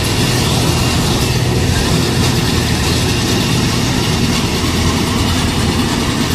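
Combine harvester running while it cuts and threshes rice. Its engine and machinery make a steady, loud drone.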